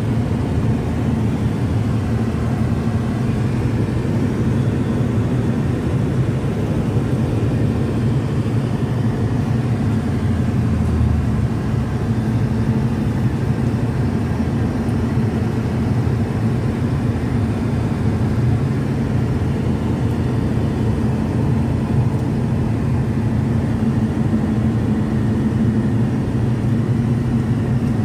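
Car driving at motorway speed, heard from inside the cabin: a steady low drone of tyre and engine noise.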